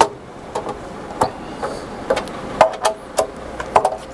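Hand screwdriver driving small screws down into a circuit board and metal chassis, making about a dozen sharp, irregular metallic clicks as the tip seats and turns in the screw heads.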